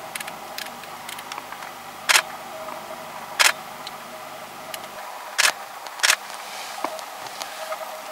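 Four short, sharp clicks over a steady hum, with scattered faint ticks between them.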